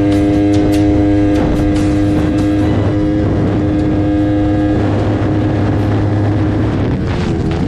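Yamaha R3's parallel-twin engine running at high, steady revs at highway speed, with wind rushing over the microphone. Near the end the engine note dips briefly in pitch and recovers.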